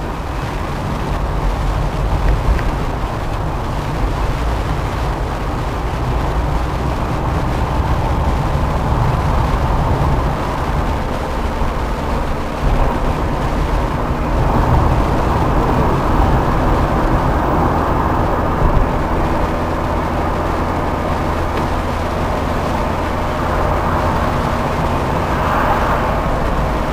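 A 1994 Fiat Elba running at road speed, heard from inside the cabin: a steady engine hum with tyre and road noise.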